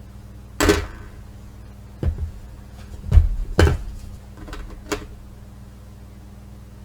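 A handful of sharp knocks and clicks, irregularly spaced over about four seconds: hard objects being handled and set down on a work surface. A steady low hum runs underneath.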